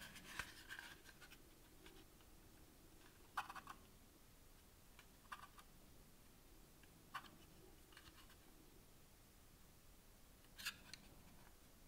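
Faint handling noise: a short scrape near the start, then a few brief scratches and light clicks several seconds apart over near silence.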